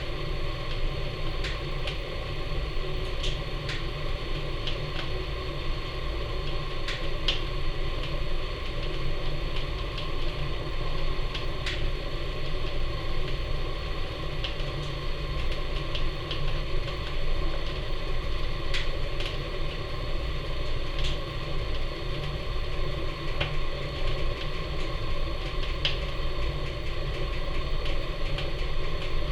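Seasoned wood burning in the firebox of a Napoleon model 150 wood furnace: a steady low roar of the fire drawing hard with the ash pan door open, with scattered crackles and pops from the burning wood.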